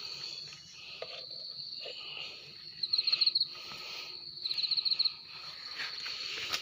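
Insects calling: a steady high-pitched drone, with two louder rapid trills at the same pitch, the first about three seconds in and the second about a second and a half later. A few faint knocks and rustles mix in.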